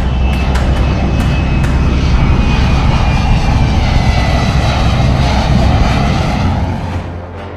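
Jet aircraft flying past: a loud roar with a thin whine that falls steadily in pitch over the first few seconds, dying away near the end.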